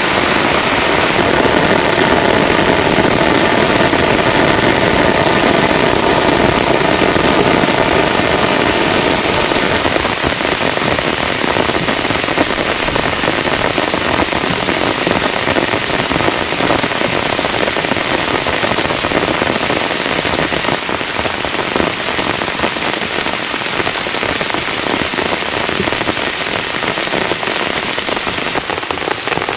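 Heavy rain falling steadily on a surface, an even, dense hiss.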